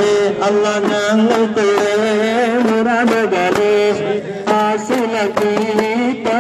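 A sung devotional chant with daff frame drums struck in a steady beat under the voice.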